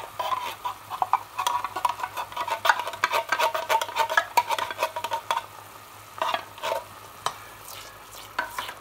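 A spatula and a spoon stirring thick tomato sauce in a stainless-steel saucepan, scraping and tapping against the pan over a low sizzle of the simmering sauce. The stirring is busiest in the first half and turns sparser later.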